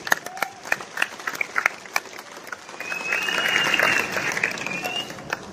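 Audience applauding: scattered separate claps at first, filling into fuller applause about three seconds in.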